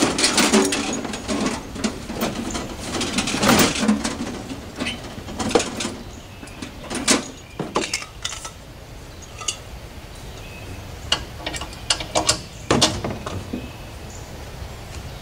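Knocks, clicks and rustling of gear being handled in a pickup truck bed, busy for the first few seconds and then scattered sharp clicks.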